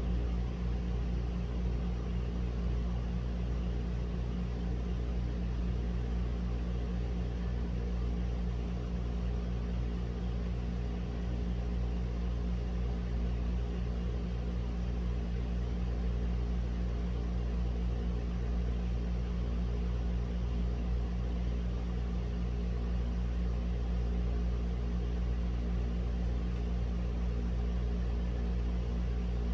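A steady low mechanical hum with a rumble, unchanging throughout.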